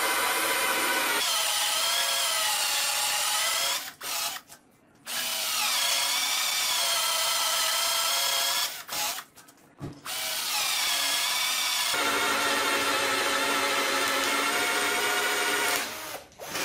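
Wesco WS2502K2 12V cordless drill/driver boring holes in a pine board with a 3/4-inch wood bit. The motor whines in three runs, with brief stops about four and nine seconds in, and its pitch wavers as the bit cuts. It cuts easily, without strain.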